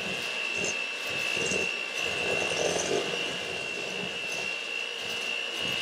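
Electric hand mixer running steadily with a high whine, its beaters whirring through cookie batter in a stainless steel bowl.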